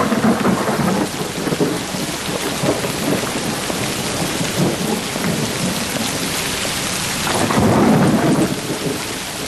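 Heavy rain pouring steadily with thunder rumbling, loudest at the start; the thunder swells again near the end.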